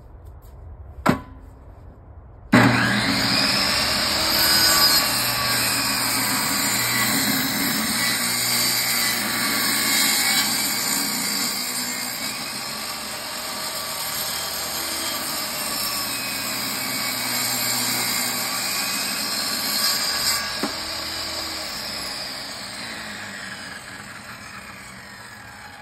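Benchtop table saw starting up suddenly and ripping a thin strip off an old weathered 4x4 post, the blade whining under the cut. It is switched off about 20 seconds in and winds down with a falling whine. A single knock comes just before it starts.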